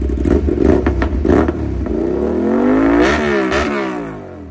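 Aprilia RS 457's parallel-twin engine revved through a carbon SC Project-style mesh-end silencer held onto the header by hand: a few quick blips, then one longer rev that rises and falls back, and the sound drops away near the end.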